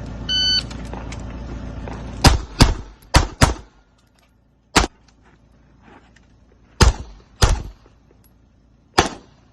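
Handgun shots fired in an IPSC stage: eight sharp reports, mostly in quick pairs, some louder and closer than others. A low steady rumble runs under the first few seconds, and a short high beep sounds near the start.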